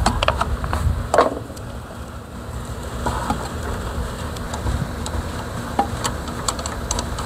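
Briggs & Stratton 550 series single-cylinder mower engine running steadily, with scattered light clicks and knocks of parts being handled and a short squeak about a second in.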